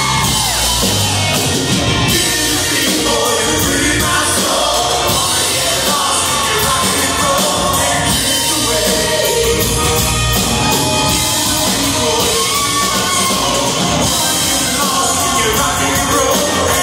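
Live hard rock band playing loud: an electric guitar plays wavering, bending lead lines over bass guitar and drums.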